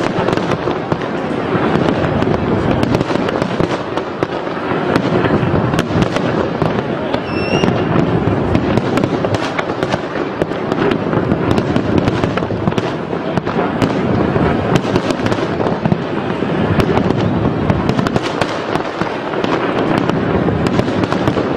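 A fireworks display going off continuously: many sharp bangs in quick, irregular succession over a constant crackle.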